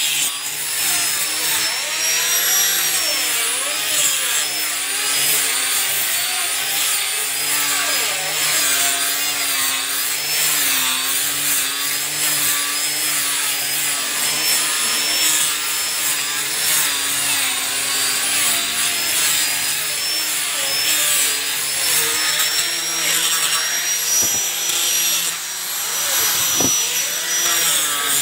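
Maktec hand grinder with 180-grit sandpaper running continuously as it sands teak wood. The motor's whine wavers slightly in pitch over a rough rasp of abrasive on wood.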